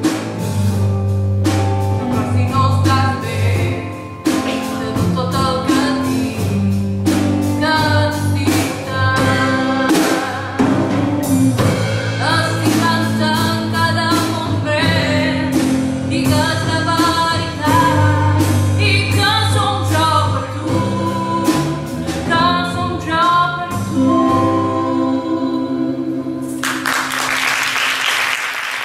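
Live band of electric guitar, drums and keyboard accompanying singing in a musical-theatre number, with a steady drum beat under the voices. About two seconds before the end the song stops and audience applause breaks out.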